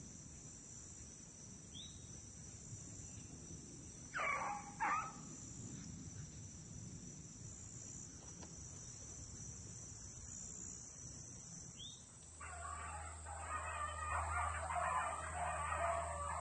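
A rabbit-hunting dog barks twice, about four and five seconds in, giving mouth as it trails a freshly jumped rabbit, over a steady high-pitched chorus of insects. About twelve seconds in, a louder steady noise with a low hum sets in.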